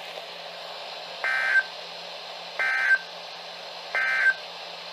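NOAA Weather Radio sending the Emergency Alert System end-of-message code: three short, buzzy digital data bursts about 1.4 seconds apart, over steady radio hiss. The bursts signal that the broadcast alert has ended.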